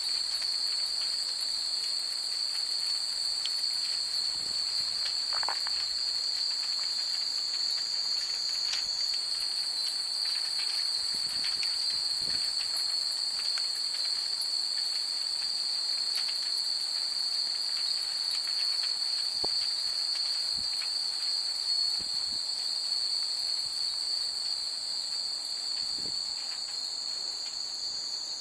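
Many hanging Japanese wind bells (fūrin) tinkling faintly and irregularly, with sparse scattered pings, over a steady, high-pitched chorus of night insects.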